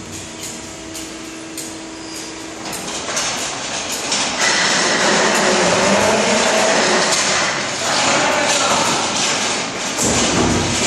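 Hydraulic power unit of a set of automatic rising bollards running, a steady whirring noise from about four seconds in. Near the end comes a thump as the bollards start to rise.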